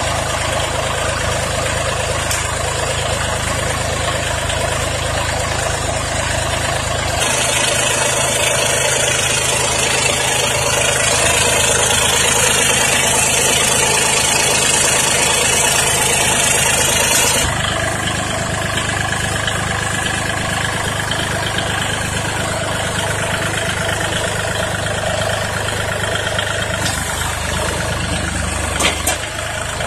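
Kubota L3608 compact tractor's three-cylinder diesel engine running steadily, with its note changing a few times. A strong high hiss joins for about ten seconds in the middle, and there is a sharp click near the end.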